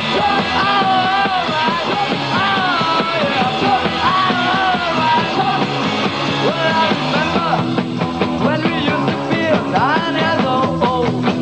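Live garage rock band playing loud and fast, with a pitched lead line bending up and down over the full band.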